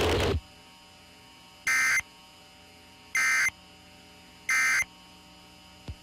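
Emergency Alert System end-of-message data code: three short bursts of high digital data tones, about one and a half seconds apart, marking the end of the alert. A loud, noisy background cuts off less than half a second in.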